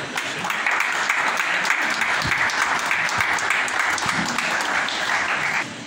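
Audience applauding: dense clapping that builds in about half a second in and cuts off suddenly near the end.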